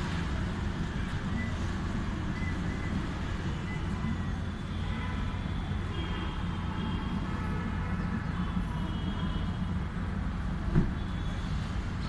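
Steady low background rumble with faint higher tones in the middle and a single short thump near the end.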